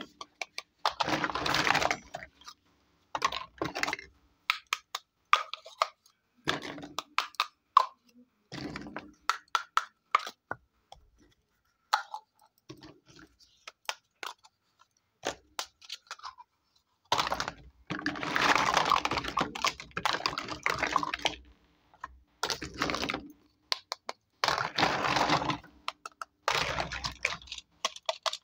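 Small plastic toy kitchen pieces clicking and knocking as they are handled, with several longer stretches of rattling clatter as hands rummage through a heap of them.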